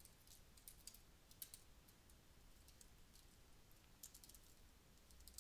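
Faint typing on a computer keyboard: scattered key clicks in short clusters.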